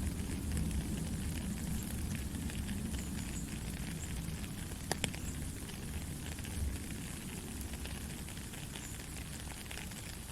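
Soft rain falling steadily, a dense patter of drops, with one sharper drop striking about five seconds in.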